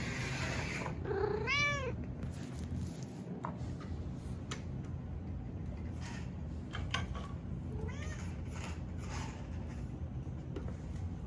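A domestic cat meows once, loud and drawn out, about a second and a half in, and again more faintly near eight seconds. Underneath runs the steady low hum of an HO-scale Tyco trolley's motor, with scattered light clicks.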